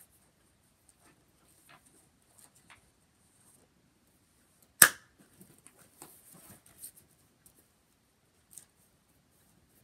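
Light rustling and taps of paper and dividers being handled in a ring binder, with one loud, sharp metallic snap about five seconds in: the binder's metal rings snapping shut.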